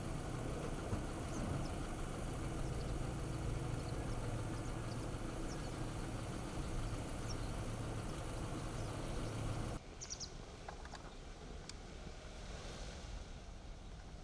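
A steady low engine hum, like a vehicle idling, with a few faint high chirps over it. About ten seconds in it cuts abruptly to a quieter open-air ambience with a few faint, short, high bird chirps.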